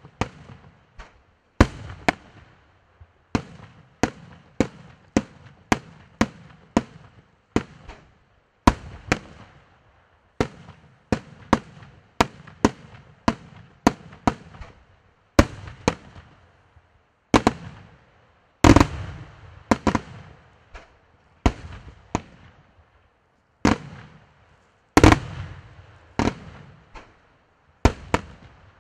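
Aerial firework shells bursting in quick succession, a sharp bang about every second, each with a fading rolling echo. The two loudest bangs come in the second half.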